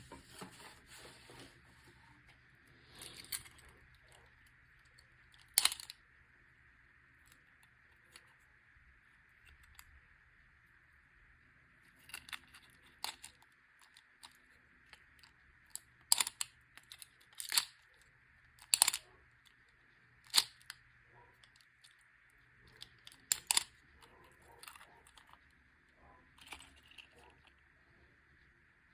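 Toy packaging being handled and torn open: scattered sharp clicks and short tearing sounds, thickest around the middle, over a faint steady high-pitched hum.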